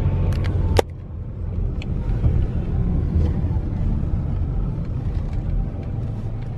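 Car cabin rumble as the car rolls slowly: a steady low drone of engine and road noise heard from inside the car. A sharp click comes just under a second in, after which the rumble is a little quieter.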